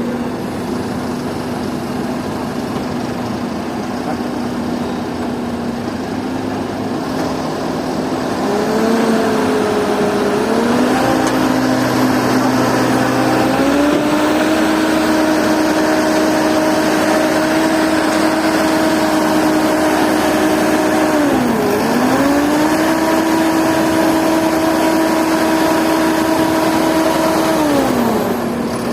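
Heavy construction machine's diesel engine idling, then revving up a third of the way in and holding high revs, with a brief dip near the middle, before dropping back to idle near the end.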